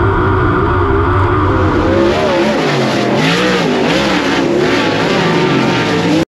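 Dirt late model race car engine running hard, its pitch rising and falling as it goes on and off the throttle. The sound cuts off abruptly near the end.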